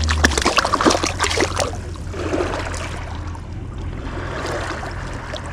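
Water splashing and lapping at the shoreline, with a quick run of sharp splashes and clicks in the first two seconds before it settles to a steady wash.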